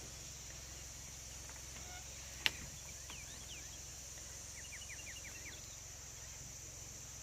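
Outdoor nature ambience: a steady high-pitched hiss with a low rumble beneath, and a bird giving faint short chirps, including a quick run of about six notes midway. A single sharp click about two and a half seconds in.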